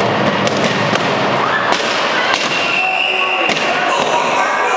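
Loud crowd in a sports hall: many voices talking and shouting together, with sharp knocks and bangs scattered through.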